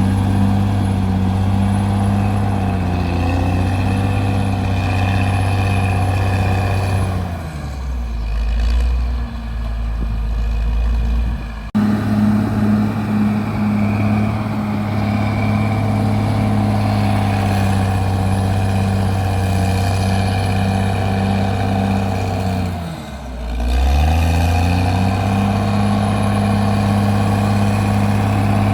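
CAT D6R bulldozer's diesel engine running hard under load. About a third of the way through, the revs sag to a low rumble, then snap back to a steady pitch. Near the end they dip briefly and climb back as the dozer lugs and recovers.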